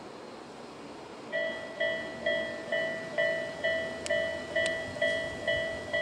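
Japanese railway level crossing's electronic warning bell, of the Tobu Railway 'sound A' type, starts a little over a second in and rings steadily at about two dings a second: the crossing has been triggered by an approaching train. Before it there is only a faint outdoor hiss.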